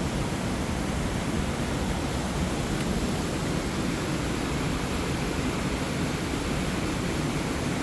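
Water rushing steadily through a lock's sluice gate as the lock chamber fills.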